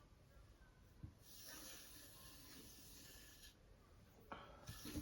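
Faint rubbing of a knife blade on a leather strop in two stretches, with a soft knock about a second in and another near the end.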